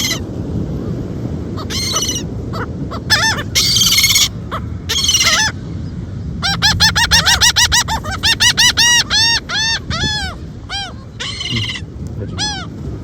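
Gulls calling loudly: a few drawn-out squealing cries, then a fast run of short arching notes, about five a second, and scattered single calls near the end.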